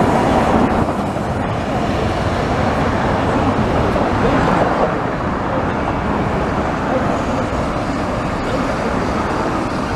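Street trams and road traffic running past a tram stop. An older tram rolls by on the far track, and a low-floor tram pulls in to the platform, over a steady traffic noise that swells a little midway.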